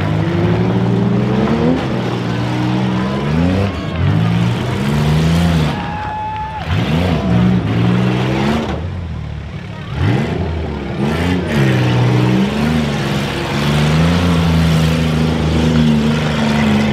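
Several 1990s-and-newer demolition derby cars' engines revving up and down over one another as they drive and ram, their pitches rising and falling out of step. Briefly lower around two-thirds of the way through, then revving again.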